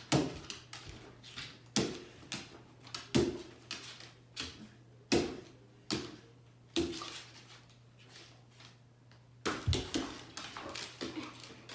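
A dog playing with a toy: a series of irregular sharp knocks and scuffs as the toy is mouthed and knocked about.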